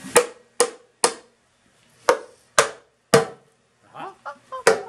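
A mallet striking the upturned oil pan of a Case 430 tractor engine, knocking the pan loose for removal. About eight sharp knocks come in uneven groups, each with a short ring.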